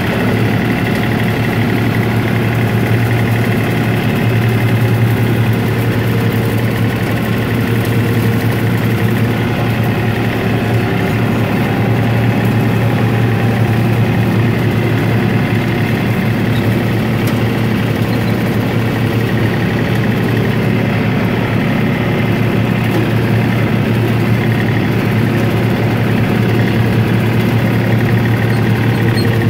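John Deere compact tractor's diesel engine running steadily while bush hogging, a constant low drone with no change in speed.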